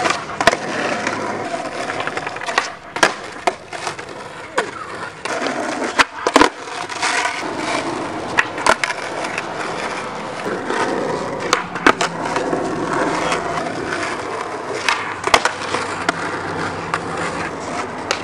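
Skateboard wheels rolling over asphalt, broken by repeated sharp clacks of boards popping and landing as flatground tricks are tried.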